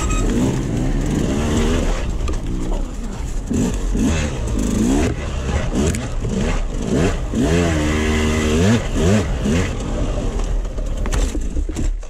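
KTM 200 XC-W two-stroke dirt bike engine being ridden hard, its note rising and falling over and over with throttle and gear changes, with occasional knocks from the trail.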